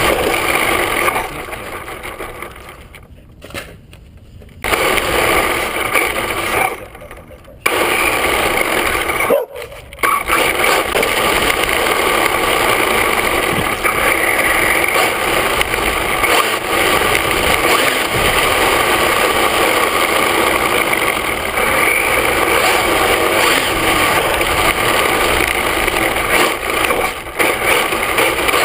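Onboard sound of an HPI Mini Trophy RC truck running on a Velineon VXL-3s brushless system: a steady motor and gear whine with tyre rumble on asphalt, loud and close. It falls away briefly a few times in the first ten seconds, then runs evenly.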